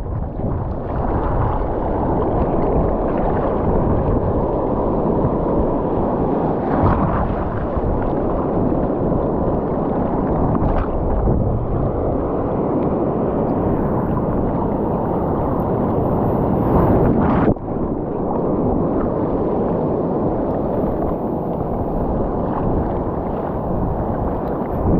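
Sea surf breaking and washing around a wading angler, a steady low rush with wind buffeting the microphone. A short sharp knock about seventeen seconds in.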